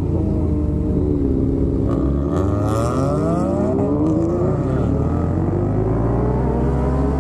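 Sport bike engines under way, their pitch rising and falling through throttle and gear changes, more than one engine heard at once with a hard rise in revs about two seconds in.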